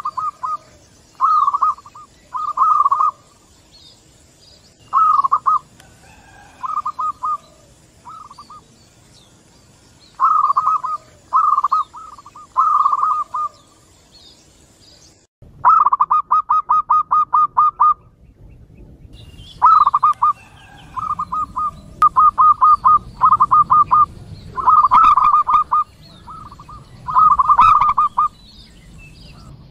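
Several zebra doves (perkutut) cooing back and forth. Each call is a short run of quick staccato notes, and the calls come every second or two, with a brief pause about halfway through.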